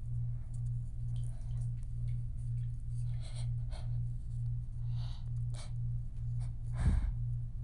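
A woman's sharp breaths and sniffs during a sneezing fit, with a louder sudden burst about seven seconds in, over a steady low hum that pulses about twice a second.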